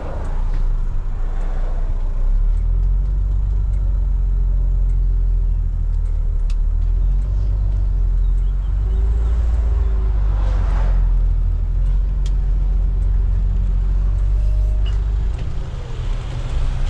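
Setra 309 HD coach's diesel engine running with a steady low hum. There is a brief hiss about ten seconds in.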